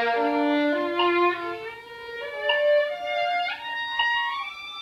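Solo violin, bowed by a student, playing a B-flat practice passage, its notes climbing in pitch step by step.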